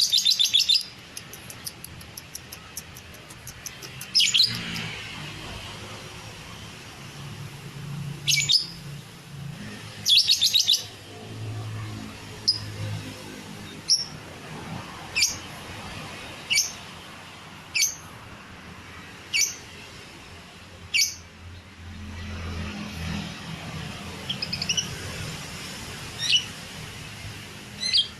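Lovebird song from a fighter lovebird: short bursts of rapid, high-pitched chattering trills, then a run of single sharp chirps about every second and a half, with more trilling near the end.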